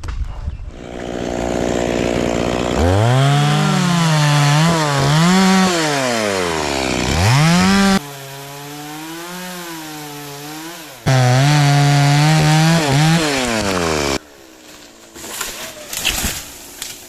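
Stihl two-stroke chainsaw revving and cutting wood, its pitch rising and dropping repeatedly as it works through the cut. The saw stops a few seconds before the end, followed by a few scattered knocks.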